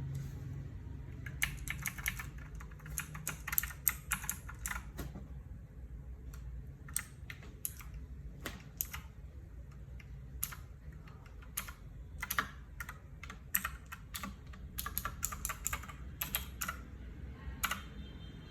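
Typing on a mechanical keyboard with Huano Blue clicky switches: irregular sharp key clicks in quick runs with short pauses. A low steady hum runs underneath.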